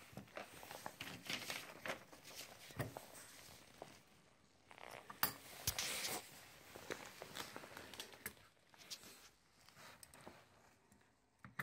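Faint handling noise from a homemade stainless steel and plastic furler unit being turned over in the hands on paper drawings: scattered small clicks and taps with brief rustles.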